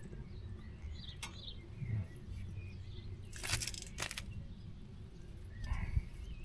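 A few sharp clicks and taps of small metal parts being handled, once about a second in and several more between three and four seconds in, with birds chirping faintly.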